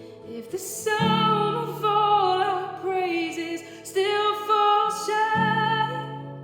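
A woman singing a slow worship song with vibrato, accompanied by acoustic guitar. Guitar chords are struck about a second in and again near the end.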